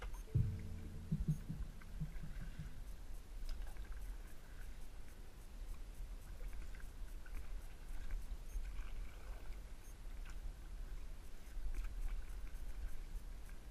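Music fades out in the first couple of seconds. After that, quiet kayak sounds: a low rumble with scattered light ticks and drips as the kayak glides slowly through a mangrove channel.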